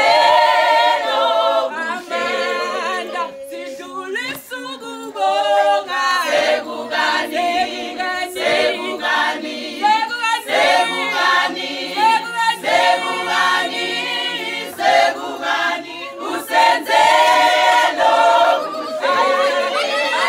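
A group of women singing together unaccompanied, a cappella choir-style, for about twenty seconds.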